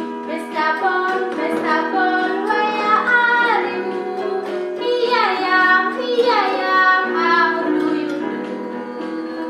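A children's song: high voices singing a melody over held accompaniment chords.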